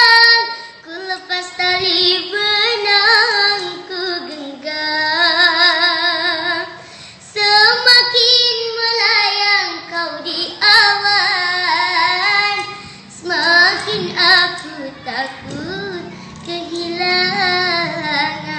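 A child's voice singing a slow Indonesian song solo, with vibrato on the long held notes and short breaths between phrases.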